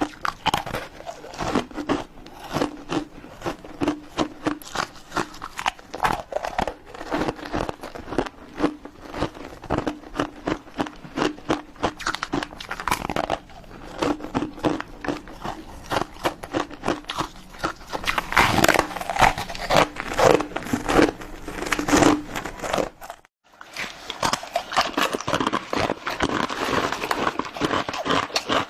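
Close-up chewing and crunching of ice: a dense, irregular run of sharp crunches and cracks as the ice is bitten and ground between the teeth. The crunches are loudest and most forceful for a few seconds past the middle, then stop for a moment about 23 seconds in before carrying on.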